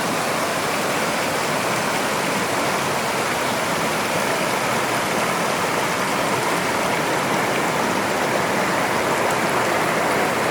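Mountain valley stream swollen by rain, its water rushing over rocks in a steady, loud rush without a break.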